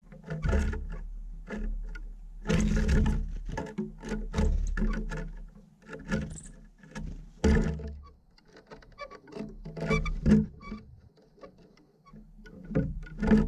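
Irregular knocks and taps on a wooden bird feeder as birds hop about and peck at sunflower seeds, each knock carrying a low wooden ring from the feeder boards.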